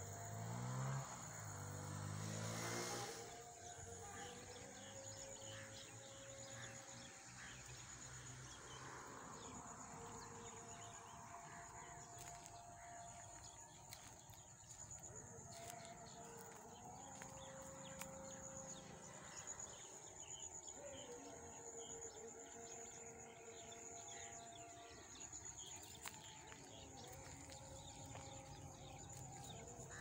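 Rural field ambience: a steady high-pitched insect drone, with faint animal calls now and then. A louder sound rising in pitch stands out in the first three seconds.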